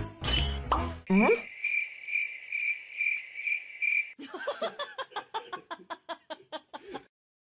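Comic sound effects over the end of a music track. About a second in there is a quick rising slide-whistle glide, then a cricket chirping steadily in about three pulses a second for roughly three seconds, then a quick run of short plinking notes that fades out.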